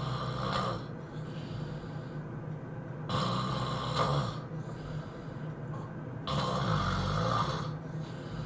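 A person snoring heavily: three loud snores about three seconds apart, the first ending about a second in, with quieter breathing between them.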